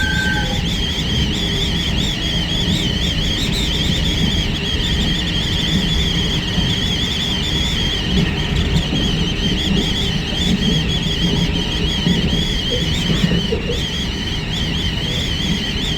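Cabin noise of a moving electric train: a steady running rumble with a high, wavering whistle of wind, which the uploader warns of. A brief steady tone cuts off about half a second in.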